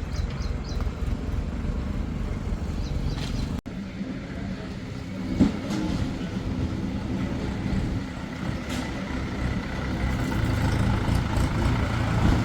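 Heavy diesel engine of earth-moving machinery running steadily. There is a short knock about five seconds in, and the engine grows louder near the end.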